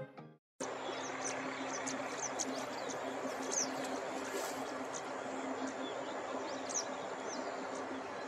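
Short, high bird chirps scattered over a steady background hiss of outdoor ambience. The sound starts after a brief silence about half a second in.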